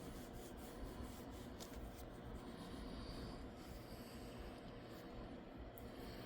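Faint rubbing on the surface of a foil trading card as it is cleaned by hand, a soft scratchy sound.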